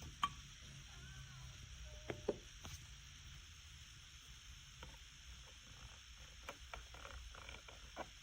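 Faint, scattered clicks and taps at irregular intervals over a low steady hum.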